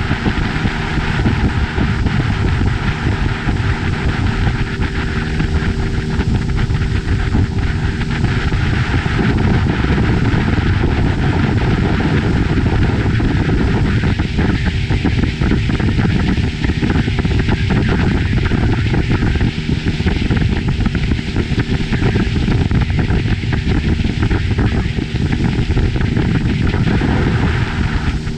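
Motorboat under way at speed: a loud, steady rush of wind on the microphone and water past the hull, with the engine's hum faintly underneath.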